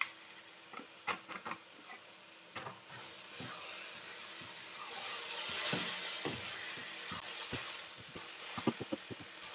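Wooden spoon knocking and scraping against a steel pot while sugar is stirred into grated carrot halwa. From about three seconds in, a sizzling hiss builds up and holds as the mixture cooks, with a flurry of spoon knocks near the end.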